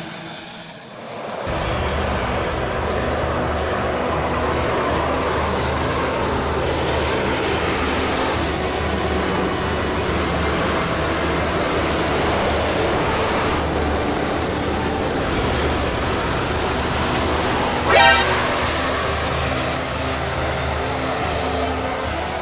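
Miniature jet turbine running steadily, a high thin whine over a rush of exhaust, the whine creeping up in pitch a couple of seconds in as it spools up. A brief loud rattle about three-quarters of the way through.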